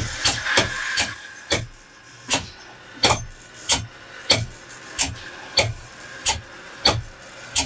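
Air-driven transfer pump cycling, a sharp knock at each stroke about every two-thirds of a second, over a steady hiss, as it pushes fluid out of its disconnected recirc line into a waste bucket during a system flush.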